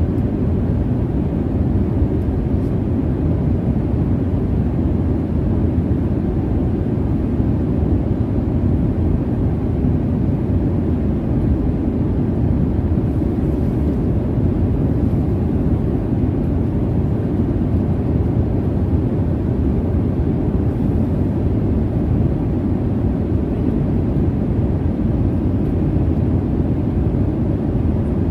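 Airliner cabin noise: a steady, deep rumble of jet engines and rushing air, heavy in the low end and unchanging throughout.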